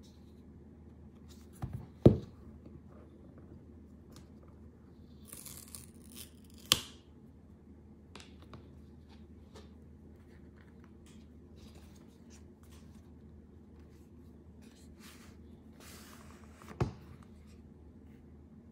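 Cardboard and paper handling as an Apple Pencil Pro box is opened: two stretches of tearing as the seal strips are pulled off, with small rustles and clicks of the box being turned. Three sharp knocks of the box against the table, the loudest about two seconds in.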